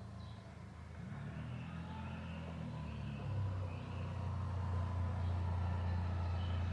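Low, steady engine hum of a motor vehicle, growing louder over the first few seconds and then holding steady.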